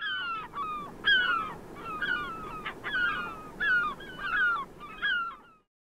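Gulls calling: a quick run of short, falling, squawking calls, about two a second, over a steady low rush. The calls stop abruptly near the end.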